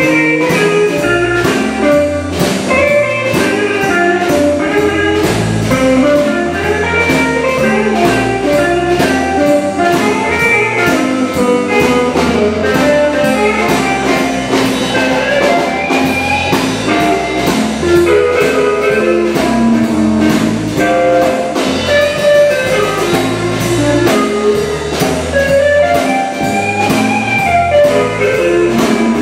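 Live blues band playing: electric guitar over a drum kit and bass guitar.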